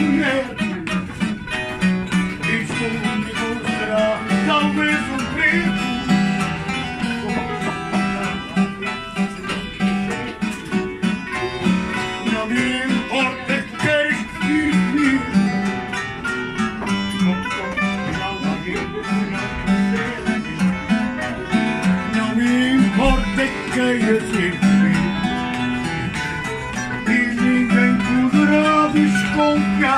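Live fado: a Portuguese guitar plays a plucked melody over the chords of a classical guitar, with a man singing.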